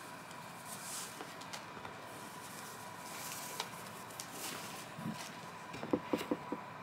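Shoelace being pulled through the eyelets of a roller-skate boot: soft rubbing and swishing with faint ticks, then a quick run of small clicks near the end.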